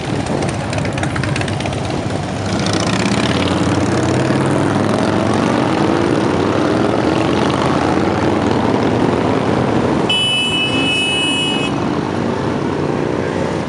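A procession of loud V-twin cruiser motorcycles, mostly Harley-Davidsons, riding past one after another, their engine notes rising as they pull away. About ten seconds in, a high horn sounds for almost two seconds.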